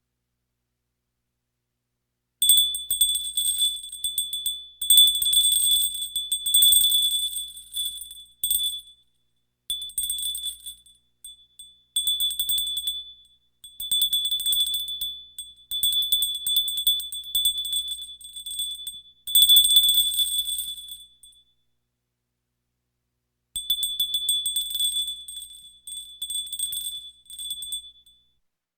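Bicycle bell rung in rapid trills, a bright high ring from quick repeated strikes. It comes in bursts of one to three seconds with short gaps between them. It starts after about two seconds of silence and pauses for about two seconds about three-quarters of the way through.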